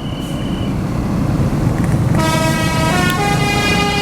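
Bus engine running, then about two seconds in a Basuri telolet multi-tone musical horn starts playing a tune over it, its notes stepping up and down in pitch.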